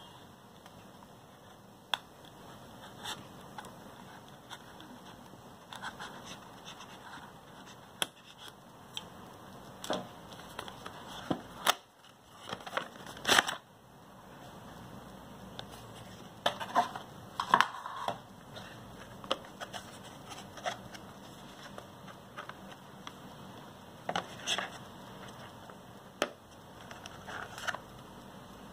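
Cardboard box and plastic packaging being opened and handled: irregular scratches, scrapes and sharp clicks, loudest in clusters about ten to fourteen seconds in and again around seventeen seconds.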